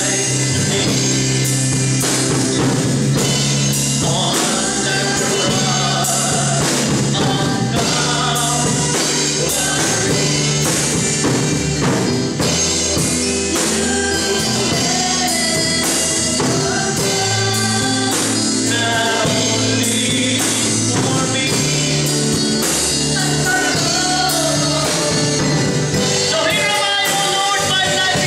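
Live gospel worship music: a man singing into a microphone over keyboard and drums, with the melody rising and falling in long held phrases.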